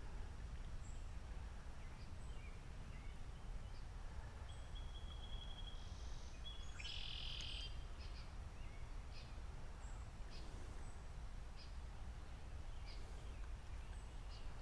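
Outdoor ambience of birds chirping over a steady low rumble. A short trill comes about five seconds in, and a louder bird call about seven seconds in.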